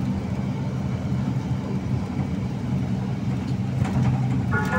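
Bus diesel engine running steadily with a low, even hum.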